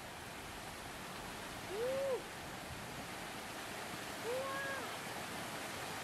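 Shallow stream water rushing steadily over rocks, with two brief high-pitched calls that rise and fall, about two seconds in and again a couple of seconds later.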